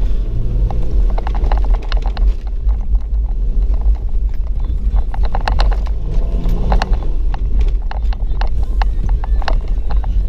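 Toyota Land Cruiser Prado 120 driving over a rough sandy 4x4 track: a steady low rumble of the vehicle with frequent sharp knocks and rattles as it jolts over ruts and bumps.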